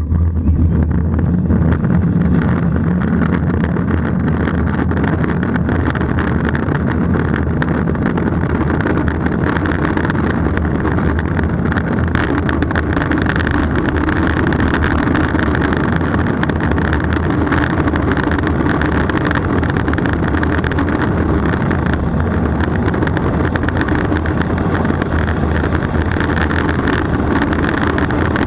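Steady loud rush of wind buffeting an action camera's microphone, mixed with the roll of urethane wheels on asphalt, as a street luge runs downhill at speed.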